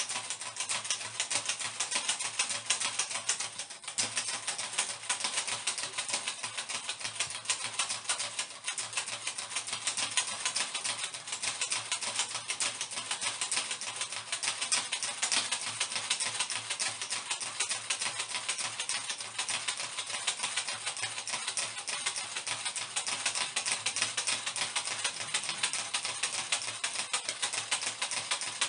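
Hand fan being waved rapidly and without a break, giving a continuous dense clatter of quick flaps.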